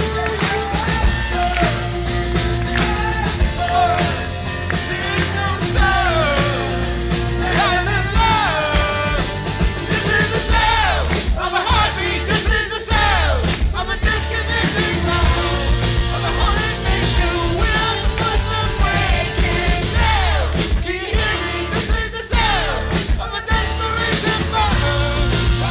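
Rock band playing live in an acoustic arrangement, with a sung vocal melody over steady bass and guitars.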